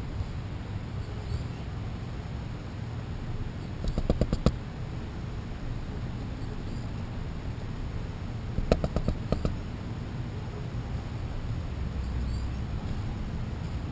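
Squirrel's claws clicking and tapping on a clear plastic sheet just above the microphone, in two quick runs of several taps, about four seconds in and again about nine seconds in, over a steady low outdoor rumble.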